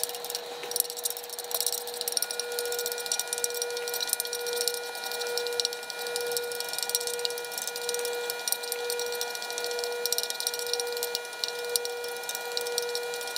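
Sichuan peppercorns sizzling and crackling in hot oil in a frying pan as they are fried until they blacken. A steady pitched hum runs underneath, gently pulsing, and grows a few higher tones about two seconds in.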